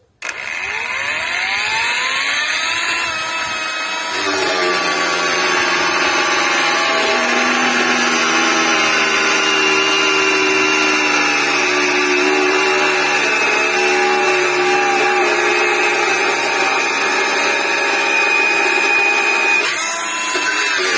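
VIOLEWORKS cordless angle grinder starting with a rising whine as the disc spins up. About four seconds in the disc bites into a thin steel angle and cuts steadily through it, with a brief dip near the end.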